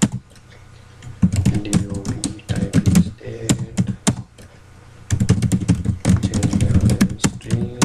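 Typing on a computer keyboard: quick runs of keystrokes about a second in and again from about five seconds in, with a short pause between.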